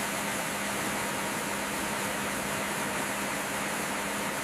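Steady machinery hum under an even rushing hiss, unchanging throughout, typical of industrial pumping equipment.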